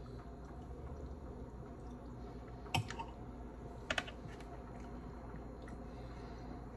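A metal spoon clinking against a ceramic bowl: one clink almost three seconds in and a quick double clink about a second later, over a faint steady room hum.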